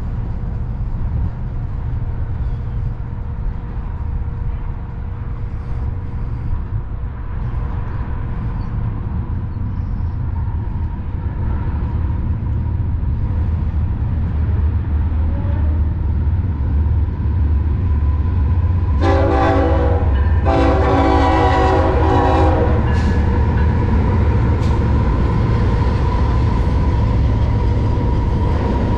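Diesel locomotives of a BNSF intermodal train approaching, their low engine rumble growing louder. About two-thirds of the way through, the locomotive horn sounds a short blast and then a longer one.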